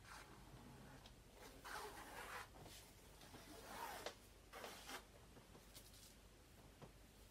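Faint scratchy strokes of a pencil sketching lines on a canvas, in three short spells.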